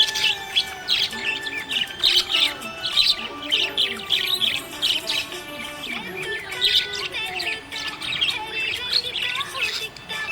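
Budgies chirping and warbling in a rapid, continuous chatter of short high notes, over background music.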